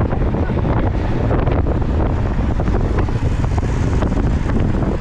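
Wind buffeting the microphone of a camera carried on a moving road bicycle: a loud, steady rumble with scattered faint ticks.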